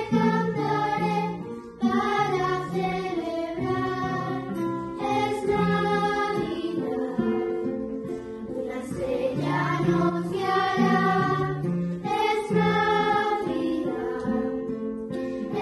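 Children's choir of girls singing a Spanish Christmas carol (villancico) in unison phrases, accompanied by acoustic guitar and digital piano. The singing dips briefly about two seconds in, then carries on.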